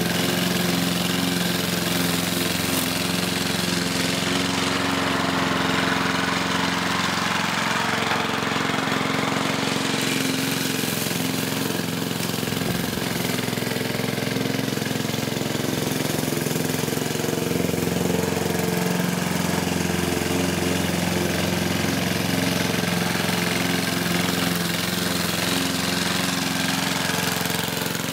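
A 1960s Goodall rotary push mower's 3 HP Briggs & Stratton four-stroke engine running steadily under load while cutting grass.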